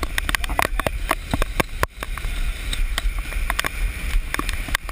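Handheld GoPro in a waterproof case jostled while its holder runs: a rapid, irregular string of knocks and clicks from handling, over a low muffled rumble.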